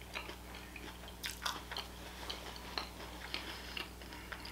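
Close-miked chewing: a person eating, with soft crunches and wet mouth clicks scattered through, over a steady low hum.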